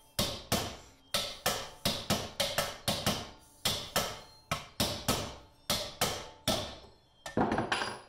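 Ball-peen hammer tapping a new Toyota rear axle bearing down into its pocket, metal on metal: a steady run of quick, sharp strikes, about two to three a second. The strikes stop about a second before the end, and a short clatter of smaller knocks follows.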